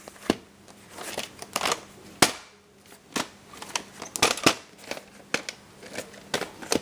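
Plastic VHS clamshell case being handled and opened: a series of sharp clicks and knocks at uneven intervals, the loudest about two seconds in.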